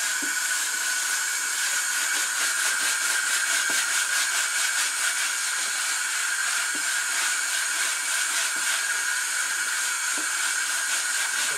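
Tap water running steadily from a faucet into a utility sink and splashing over a wooden cutting board, a constant hiss, as a gloved hand scrubs the board clean.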